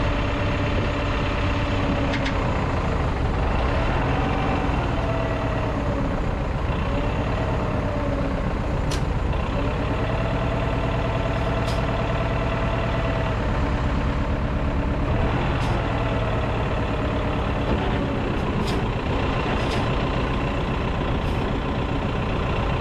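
An engine running steadily, its pitch rising and falling a few times, with a few sharp clicks along the way.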